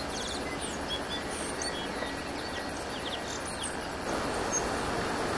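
Steady outdoor background noise with faint, scattered short high chirps.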